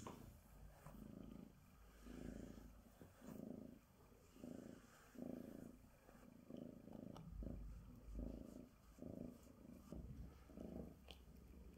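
Bengal cat purring, faint and steady, swelling and fading about once a second with its breathing.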